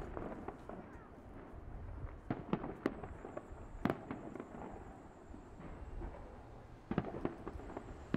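Fireworks going off: scattered sharp bangs and crackles, grouped around two to four seconds in and again about seven seconds in, the loudest about four seconds in, over a steady low background rumble.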